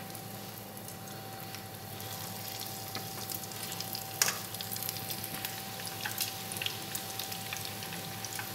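Breadcrumb-coated cauliflower florets sizzling in hot oil in a frying pan, with a spray of small pops that gets busier as more pieces go in. One louder sharp crack about four seconds in.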